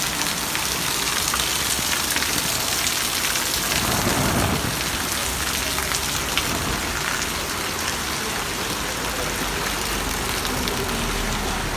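Heavy rain falling on hard surfaces, a steady dense hiss with fine drop ticks. About four seconds in there is a short deeper swell.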